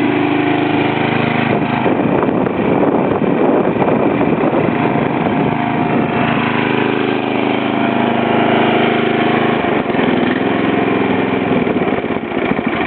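Troy-Bilt push mower's small gasoline engine running steadily, its speed shifting slightly a couple of times. The owner says it has water in the engine.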